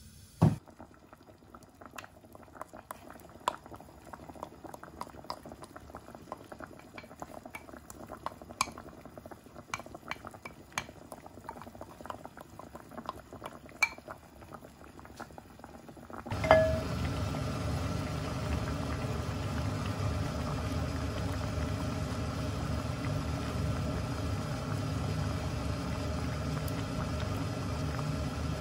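Mackerel braise with radish and onion cooking in an earthenware pot on a gas stove. The first half is quiet, with a knock at the start and scattered small clicks. From about halfway comes a steady, louder bubbling boil with a faint hum under it.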